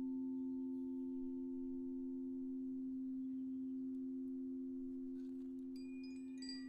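Crystal singing bowls ringing on in a steady sustained hum of two low, clear tones, with a fainter higher overtone slowly fading. Near the end, a wind chime starts tinkling in bright, high notes over the hum.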